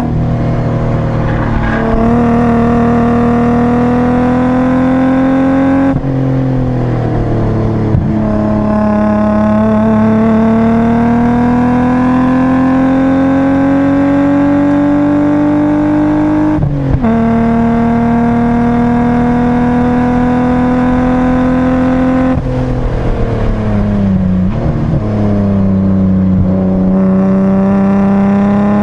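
BMW 328i's straight-six engine pulling hard on a race track, heard from inside the cabin. Its pitch climbs slowly and drops suddenly about 6, 17 and 22 seconds in.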